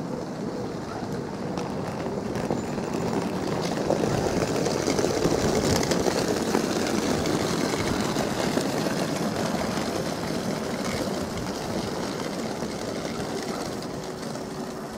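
Great Northern Class 387 electric multiple unit arriving into the station. Its running noise swells to a peak about four to six seconds in, then slowly eases off as the train slows.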